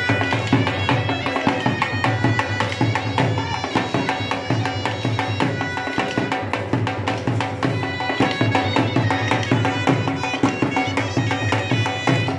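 Live Pothwari folk music for a sammi dance: a dhol drum beaten in a fast, steady rhythm under a reed wind instrument playing a melody of long held notes.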